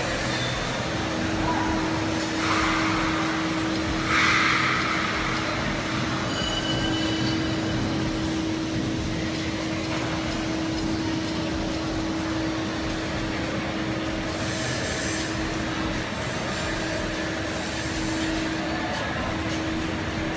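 Steady mechanical drone with a single held tone running through it, and two short rushes of hiss a few seconds in.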